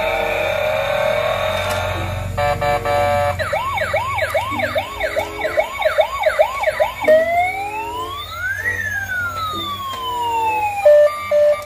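Electronic siren sounds: a fast warbling yelp of about two sweeps a second, then one slow wail that rises and falls, with a few short beeps near the end. Steady electronic tones come before the siren in the first couple of seconds.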